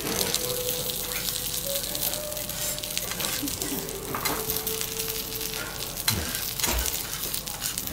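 Vegetables sizzling steadily on a hot steel teppanyaki griddle, liquid on the plate hissing off as steam, with a few sharp clinks of a steel knife and spatula against the griddle.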